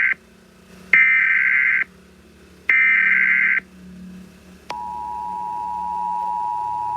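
Emergency Alert System tones: the end of one data burst, then two more harsh buzzing bursts of about a second each with gaps between them. This is the header of a new alert. About a second later the steady two-tone attention signal starts and holds.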